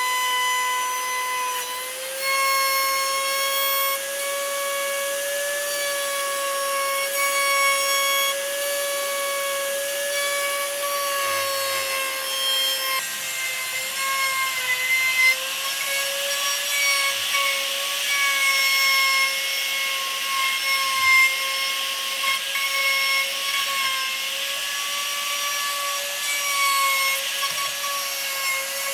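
An electric power tool working wood: a steady high motor whine with a rasping, grinding noise over it. The pitch sags and recovers slightly as the tool is pressed into the wood, and the rasping grows stronger in the second half.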